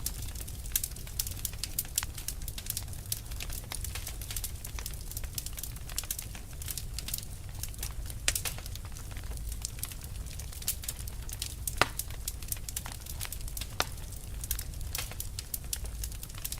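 Wood fire burning with dense, irregular crackling and snapping, a few louder pops, over a low steady rumble of the flames.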